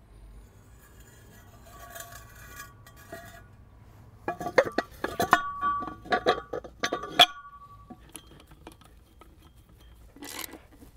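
A quick, irregular run of sharp metallic clinks, each with a short ring, from a metal hand tool worked on a plastic wall sleeve as it is fitted into a core-drilled hole in a house's foundation wall. A few fainter clicks follow near the end.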